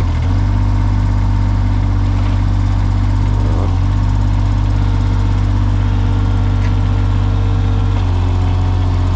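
Small tractor's engine running steadily under work. Its note shifts briefly about three and a half seconds in and again about eight seconds in.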